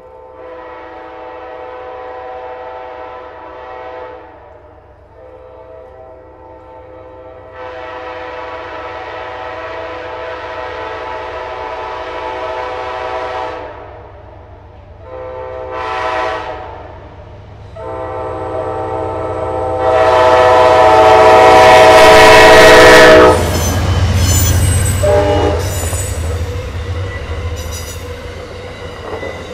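An Amtrak Northeast Regional passenger train's locomotive sounds its horn in four blasts, long, long, short, long, the usual signal for a grade crossing, growing louder as it approaches. The last blast is the loudest and cuts off as the locomotive passes. Then the train rushes by with wheel noise and thin high-pitched wheel squeals.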